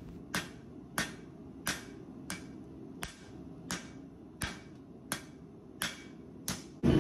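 Hand hammer striking a red-hot leaf-spring steel blade on an anvil: about ten steady blows, roughly two-thirds of a second apart, each with a brief ring.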